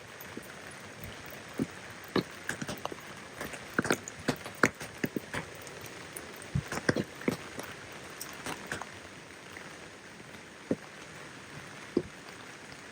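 Steady rain hiss with many loud single drops ticking close by at irregular intervals, thickest in the middle of the stretch.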